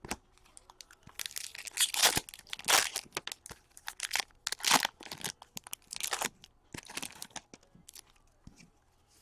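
Trading-card pack wrappers crinkling and tearing as hockey card packs are ripped open, in a string of rustling bursts that ease off near the end.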